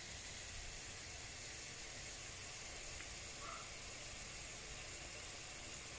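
Faint, steady sizzling of onions, garlic and peppercorns frying in a pan as cane vinegar is poured in.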